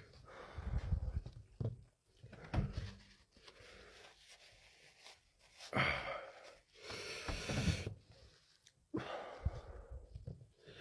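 Heavy, wheezy breathing and sniffing from a man eating Carolina Reaper peppers, coming in separate blasts: his reaction to the chillies' burn. The loudest blast, about six seconds in, is breath into a tissue held to his mouth and nose.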